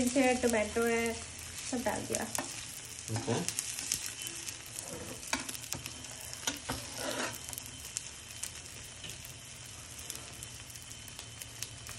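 Egg omelette with spinach, tomato and onion sizzling in a steel frying pan, with a metal spatula scraping and tapping against the pan a few times.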